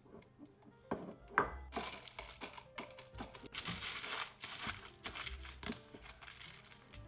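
A couple of sharp taps from a silicone spatula on a glass bowl, then plastic cling film crinkling and rustling as butter is pressed and folded inside it by hand.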